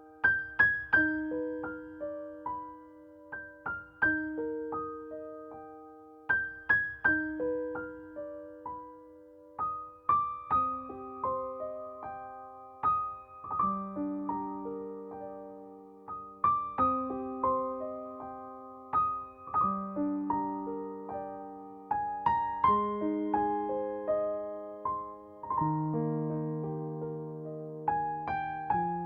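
Solo piano music: a gentle melody of struck notes that ring and fade, over low notes that step lower partway through.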